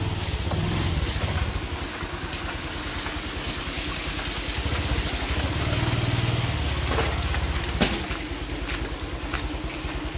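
Low, steady rumble of a motor vehicle engine running nearby, with one sharp click about eight seconds in.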